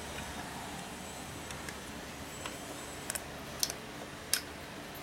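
A few short, light clicks and taps of plastic parts being handled and fitted inside a disassembled handheld car vacuum, mostly in the second half, over a steady low background hum.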